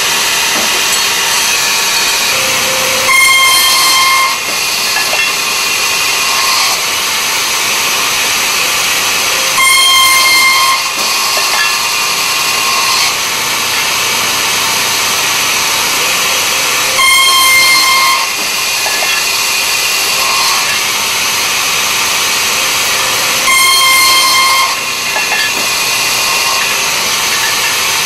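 Takeda CSHP-70A high-speed circular saw cutting two steel pipes at a time: a steady machine run broken four times, about every seven seconds, by a louder ringing screech of about a second as the blade goes through the tubes.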